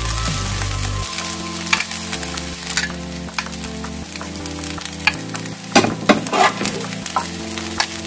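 Fried rice sizzling in a frying pan while a metal spoon presses and scrapes rice into a small bowl, giving scattered clicks and scrapes, with a loud cluster about six seconds in.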